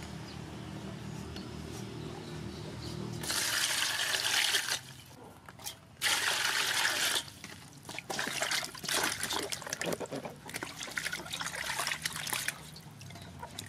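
Water pouring into a metal basin in two spells, then hands swishing and splashing peeled eggplants about in the water as they are washed.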